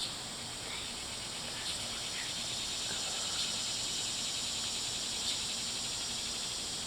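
Steady, high-pitched chorus of insects buzzing outdoors.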